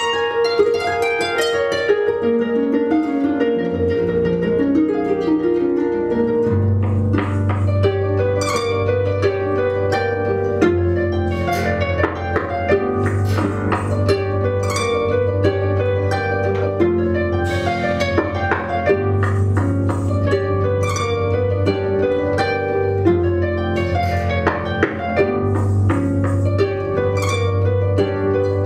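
Two concert harps played together: quick plucked patterns in the middle and upper strings, with deep bass notes coming in about four seconds in and ringing on beneath them.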